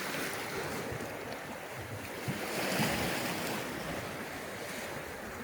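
Lake waves rolling in and washing onto a stony shore, with gusty wind on the microphone; the surge swells a little about halfway through.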